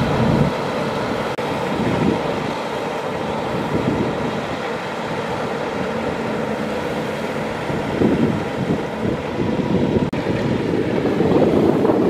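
Kubota DC-95 GM rice combine harvester running as it works: a loud, steady mechanical noise from its diesel engine and threshing gear, with a faint hum under it. It swells louder briefly about eight seconds in and again near the end.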